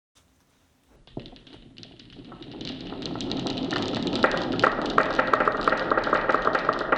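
Glass marbles rolling down a wooden marble run: a rolling rumble with quick clicks and taps that starts about a second in and builds to a steady clatter.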